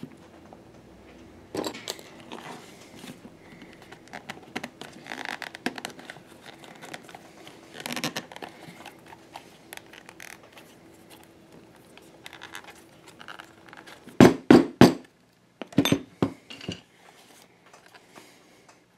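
Hands handling and flexing a stitched leather holster: soft crinkling, rustling and scraping with small clicks. A few seconds before the end come three sharp, loud knocks in quick succession, then a few more knocks about a second later.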